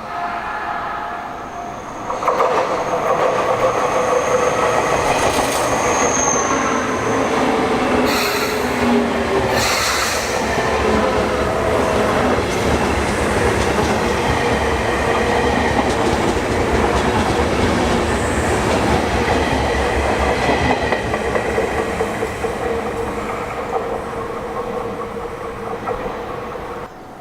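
Sotetsu Line electric train passing close by: loud, steady rail noise from the wheels and running gear that swells about two seconds in, with a high thin whine over the first few seconds. It cuts off suddenly near the end.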